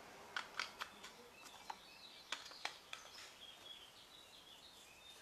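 Faint background with a scattered run of short, sharp clicks in the first three seconds and faint, high, short chirps.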